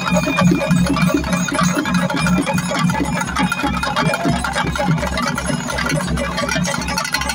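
Kerala chenda drums played by a group in a quick, steady beat, about three strokes a second, over a steady low hum.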